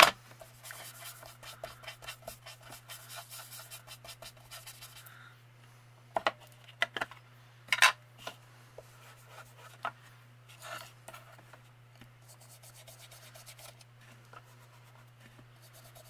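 Foam finger dauber rubbed quickly over an ink pad and paper for about five seconds, then several sharp clicks and taps as plastic ink pad cases are handled, then faint rubbing again. A steady low hum runs underneath.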